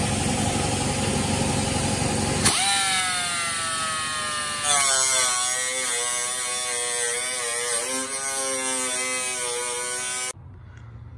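Handheld rotary tool with a cut-off wheel grinding and cutting into rusted sheet steel. A high whine wavers in pitch as the wheel bites into the metal, and the tool stops suddenly near the end.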